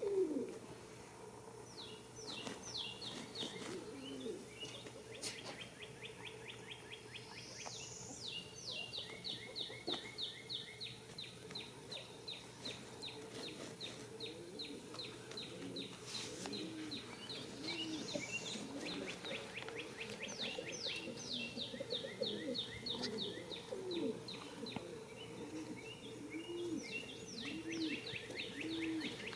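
A songbird singing the same long, rapid trill over and over, each song lasting a few seconds and starting with a quick rising note. Soft low sounds repeat underneath, about once a second, in the second half.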